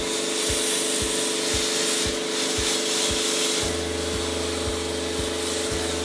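Steady hiss of a water jet from a cleaning spray gun, lightly rinsing the air conditioner's outlet and the felt filter at its bottom. Background music with a steady beat plays underneath.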